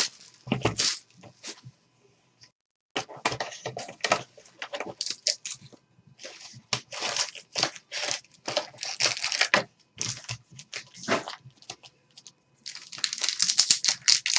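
Crackling and crinkling of clear plastic shrink wrap being torn and crumpled off a sealed box of trading cards, in irregular bursts with short pauses. Near the end comes a dense run of crinkling as a card pack's wrapper is torn open.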